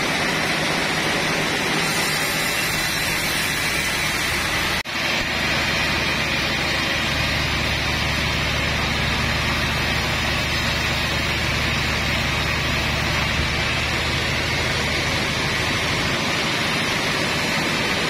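Sawmill machinery running steadily, a constant mechanical noise with a low engine hum underneath; no cutting into wood is heard. The sound breaks off for an instant about five seconds in, and the low hum is stronger after it.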